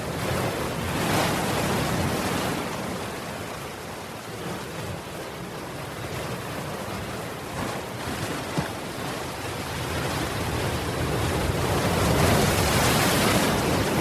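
Ocean surf: waves breaking and washing in, swelling about a second in, easing off, then swelling louder again near the end.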